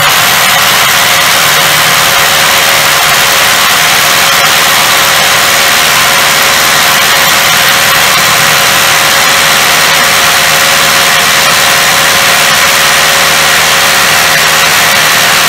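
Einhell Herocco cordless rotary hammer drilling into a concrete block in hammer mode, pushed only lightly and left to drill under its own weight. It runs loud and steady without a break.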